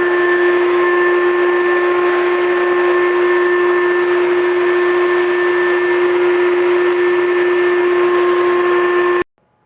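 Heavy-duty wet/dry shop vac running steadily, a loud motor hum with a high whine, cutting off suddenly near the end.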